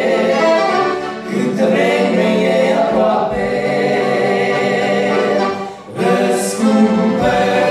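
Male vocal group singing a Romanian gospel hymn in close harmony, with accordions beneath the voices and a brief break between phrases about six seconds in.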